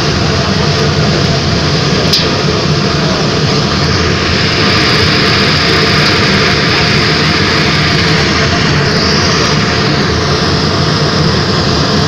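Industrial burner firing, its large open flame giving a loud, steady roar.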